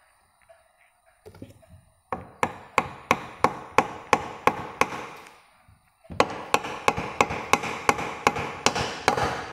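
Nylon hammer tapping a cam spindle into an old Royal Enfield Bullet's aluminium crankcase, in two runs of quick, even taps about three a second with a short pause between. The spindle is a light fit that a nylon hammer can drive home, set in with glue.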